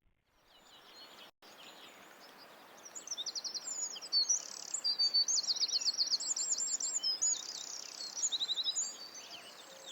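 Small songbirds singing rapid, high-pitched trills and chirps over a steady hiss. The song starts about three seconds in.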